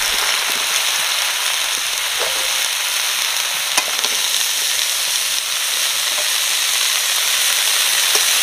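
Freshly washed pumpkin stems, leaves and aubergine sizzling in hot oil in a wok, a loud steady hiss of wet vegetables frying, with a few faint ticks.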